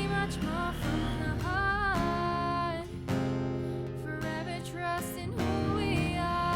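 Background music: a song with strummed guitar and a singing voice, steady in level.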